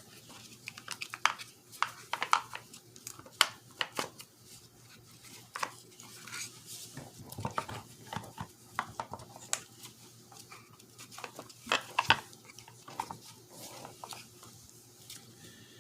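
Irregular clicks, taps and light knocks of hand tools against the plastic and metal parts of a car's manual shifter assembly as it is taken apart.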